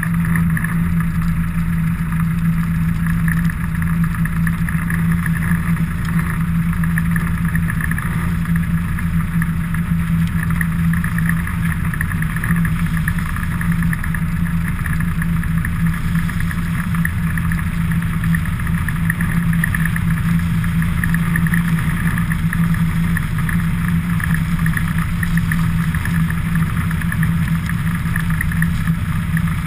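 Steady motor-vehicle drone with road noise, held at an even pitch while moving at speed downhill.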